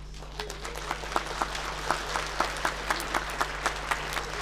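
Audience applauding, the clapping swelling about half a second in, with single sharp claps standing out above it.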